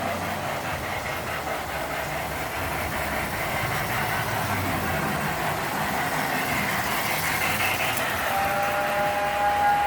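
Lionel 8206 O-gauge model steam locomotive running on its track with its electronic "Mighty Sound of Steam" chuffing. About eight seconds in, its whistle starts sounding a steady two-note chord.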